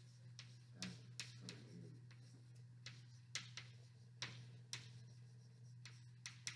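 Chalk on a blackboard as words are written: faint, scattered taps and short scrapes, over a steady low hum.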